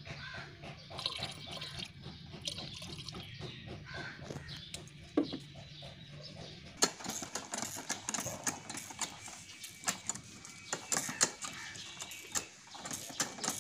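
Liquid trickling and splashing into a plastic backpack sprayer tank, with small clicks and knocks of a bottle and cap being handled. About seven seconds in, a steady hiss of running water takes over, still dotted with clicks.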